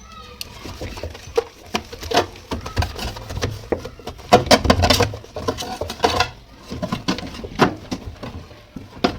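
A soapy cloth being rubbed and scrubbed by hand over a refrigerator's plastic inside, with irregular knocks and bumps against the plastic.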